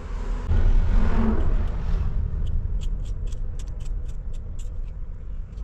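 Knife slicing tomatoes over a steel plate, a run of quick sharp clicks at about four a second through the second half. Underneath runs a steady low rumble of traffic, with a louder swell, a vehicle passing, about half a second to two seconds in.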